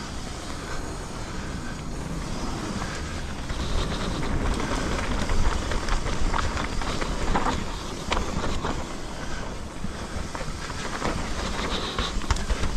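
Mountain bike riding down a dirt trail: wind buffeting the action camera's microphone over tyres rolling on the ground, with scattered sharp clicks and knocks from the bike. It grows louder about four seconds in.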